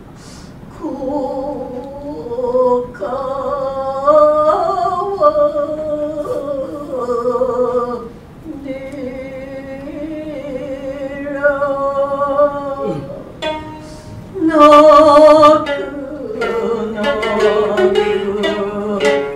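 Gidayū chanting in a joruri puppet play: the tayū's voice holds long, wavering, drawn-out notes, accompanied by shamisen. Dense plucked shamisen notes come in near the end.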